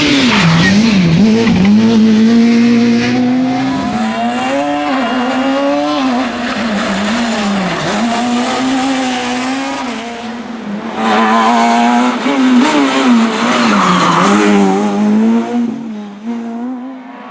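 Rally car engine held at high revs, its note falling and climbing back several times as the driver lifts and shifts gears between bursts of acceleration.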